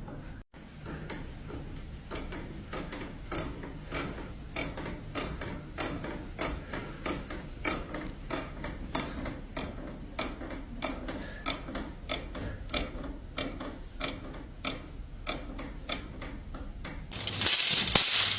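Steady, slightly irregular mechanical clicking, about three clicks a second, with a louder burst of noise about a second before the end.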